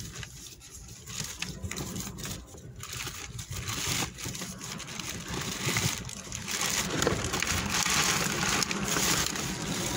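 Plastic bags and clear cellophane rustling and crinkling as gloved hands rummage through them and the discarded vegetables beneath, louder from about halfway through.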